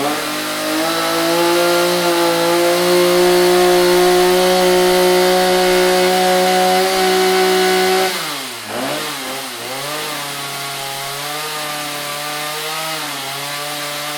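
Stihl MS 290 two-stroke chainsaw running at high, steady revs. About eight seconds in, the revs fall sharply, waver, and settle at a lower steady speed. It is running again after its fuel system was cleaned of bad gas.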